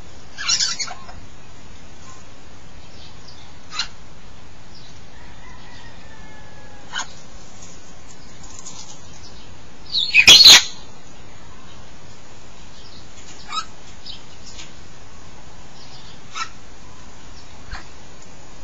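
African grey parrots calling: a short sharp call about half a second in, a few scattered clicks and chirps, a soft falling whistle around six seconds in, and a very loud short screech about ten seconds in.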